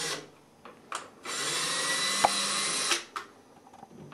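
Cordless drill running in short spurts at the metal band on a tubing frame. There is a brief blip about a second in, then a steady high whine for about a second and a half with one sharp click partway through.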